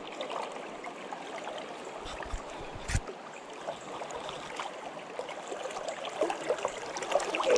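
Shallow river riffle flowing and trickling steadily, with one brief knock about three seconds in.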